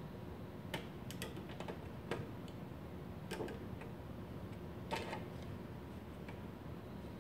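Aviation snips cutting thin aluminum fascia: a series of sharp, irregular snipping clicks in the first five seconds, the loudest about two and five seconds in.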